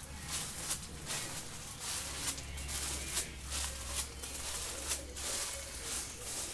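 Footsteps, two or three a second, each with a crisp crinkle of plastic sheeting underfoot, over a low hum.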